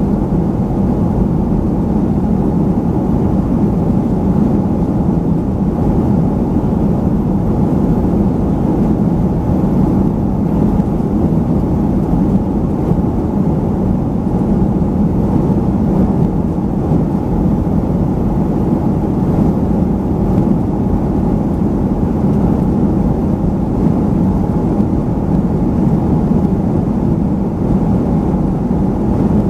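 Steady drone of a Boeing 737-500's CFM56 jet engines and rushing airflow heard inside the cabin over the wing in flight, deep and even throughout.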